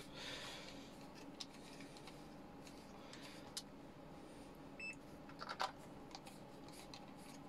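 Faint small clicks and ticks of a small screwdriver and of hands working the plastic casing of a plug-in electrical device while it is being unscrewed and opened, a few scattered clicks with a small cluster about two thirds of the way in.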